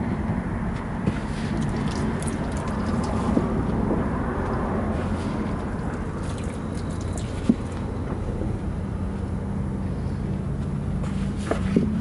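Soapy water squirted from a jug and splashing onto a semi-truck tire as it is checked for leaks, with a few faint clicks, over a steady low rumble.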